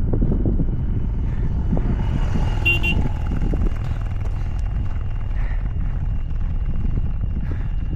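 Wind buffeting the microphone: a steady, loud low rumble. A brief high-pitched sound occurs about three seconds in.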